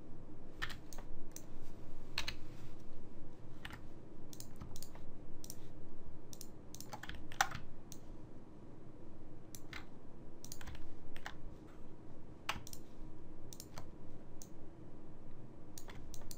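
Computer keyboard and mouse clicking at irregular intervals, over a faint steady hum.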